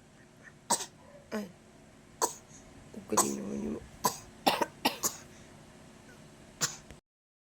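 A toddler giving a series of short, put-on coughs, about eight in all, with one longer voiced cough a little after three seconds in.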